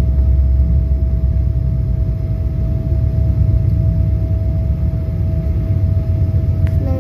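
Airliner cabin noise while the jet taxis on the ground: a loud, steady low rumble from the engines and rolling gear, with a constant whine running through it.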